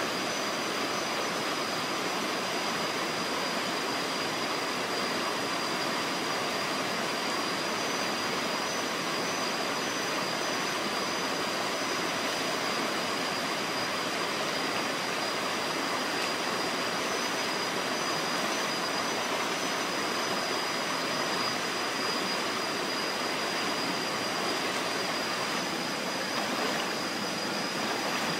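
Stream water rushing over rocks, a steady, even sound with no change in level. A thin, high, steady tone sits above it, with a fainter high tone that comes and goes.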